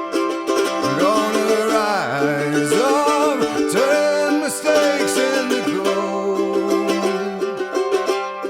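Music: a song with plucked acoustic strings over a held low note, and a sung melody gliding above them.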